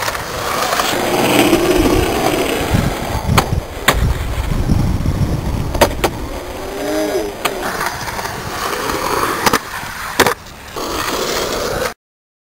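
Skateboard wheels rolling on concrete, with several sharp clacks of the board popping and landing. The sound cuts off suddenly near the end.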